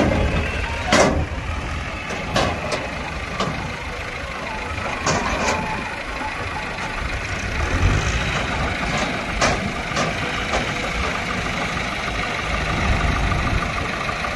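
JCB backhoe loader's diesel engine running steadily as its backhoe bucket digs, with several sharp knocks scattered through.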